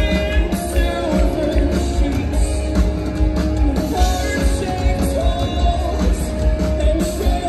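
Live rock band playing loud through a venue PA: a singer over electric guitars, bass and drums with a steady beat, recorded from within the crowd with a heavy, boomy low end.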